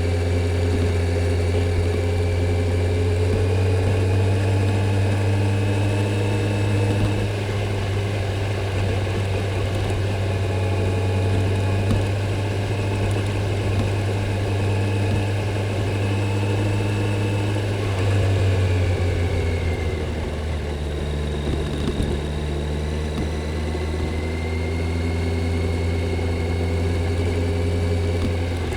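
Stock Kawasaki Z900's inline-four engine and exhaust running while riding at a steady, moderate pace. The engine note drops in pitch about two-thirds of the way through, then climbs gradually again.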